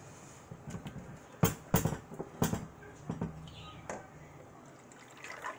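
Several sharp clinks and knocks of a glass and a pot being handled on a stone counter, the loudest three close together about a second and a half to two and a half seconds in, with softer ones after.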